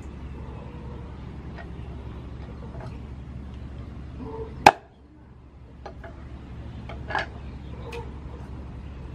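Cleaver chopping a whole raw chicken on a wooden chopping board: light taps and knocks, with one loud sharp chop about halfway through and a smaller one a couple of seconds later.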